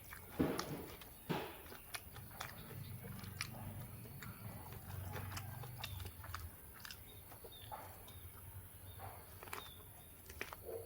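Close-miked chewing and biting of food: wet clicks and crunches of an eater's mouth, with two louder bites in the first second and a half.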